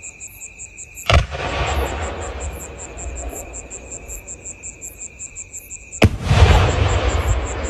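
An 8-inch aerial firework shell launched from its mortar with a sharp thump about a second in, then bursting overhead with a louder boom about five seconds later, each bang rumbling on for a few seconds. Crickets chirp in a rapid, even pulse throughout.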